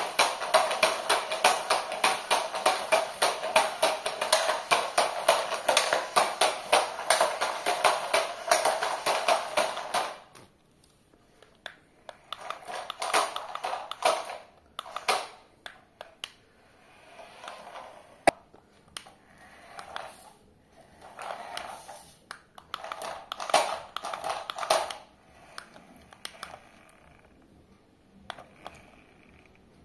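Toy RC stunt car's motors and plastic gears rattling as it drives and spins on a hard floor. The clatter is continuous and rapid for about ten seconds, then comes in short bursts, with one sharp click midway.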